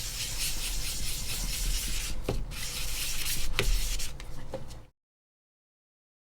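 Wet sandpaper rubbing back and forth on the plastic of an AirPods Pro case: a steady scratchy rubbing hiss with a couple of small clicks, cutting off suddenly about five seconds in.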